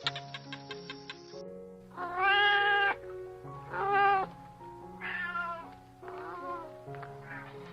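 Domestic cat meowing five times over steady background music: the first meow, about two seconds in, is the longest and loudest, and the last two are fainter and shorter.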